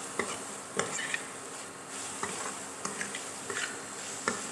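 Steel spoon stirring grated radish in a frying pan on low flame, with short scrapes and clicks of the spoon on the pan about every half second to second over a faint steady sizzle.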